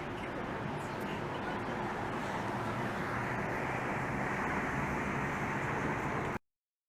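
Steady city street traffic noise, which cuts off abruptly near the end.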